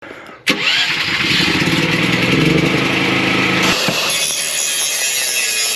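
Aluminum MIG welding arc, starting abruptly about half a second in as a loud, steady hiss with a low buzz under it; the buzz drops away a little past halfway while the hiss goes on.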